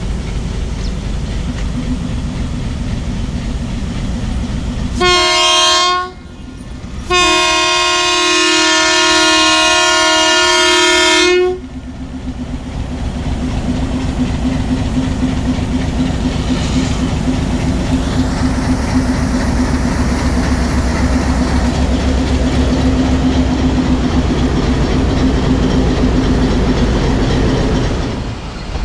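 A train horn sounds a short blast about five seconds in, then a long blast of about four seconds, over the steady running noise of a moving passenger train. Afterwards the rumble of the train continues with a steady low engine hum.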